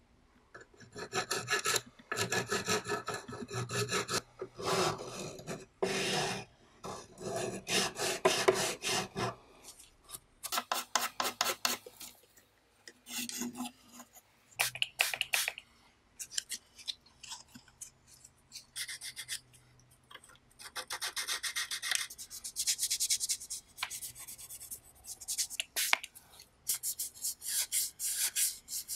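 Hand scraping, filing and sanding of small cassette-recorder parts. First a stick scrapes old yellowed glue off the cassette door's clear plastic window. Then a needle file rasps a metal part, and near the end abrasive paper rubs a metal piece. Quick back-and-forth strokes come in runs with short pauses.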